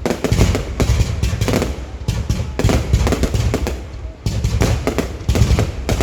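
Fireworks going off in a rapid, irregular string of loud bangs, several a second, with a brief lull about four seconds in.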